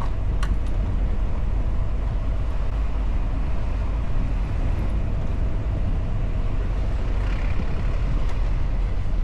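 A car on the move: a steady low engine and road rumble.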